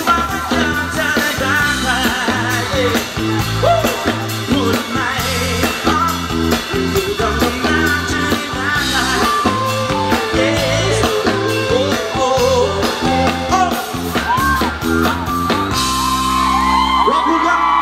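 Live pop-rock band playing at full volume, with a male lead vocal over drums and guitar. Near the end the beat drops out, leaving a held chord.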